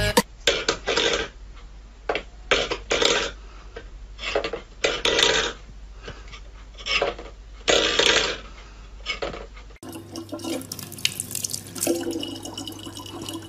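Steel pet bowls clattering and scraping on a wooden floor in a string of short, irregular bursts. About ten seconds in, this gives way to a thin stream of water from a kitchen faucet running steadily into a plastic bottle.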